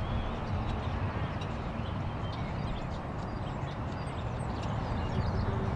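Steady outdoor background rumble with faint, scattered bird chirps.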